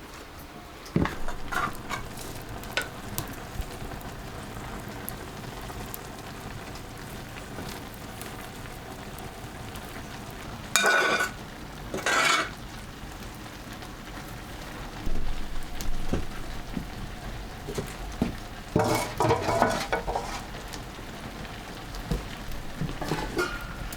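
Food frying and sizzling in a pan while it is stirred, with scattered clicks. Two loud short bursts come about eleven and twelve seconds in, and more near twenty seconds.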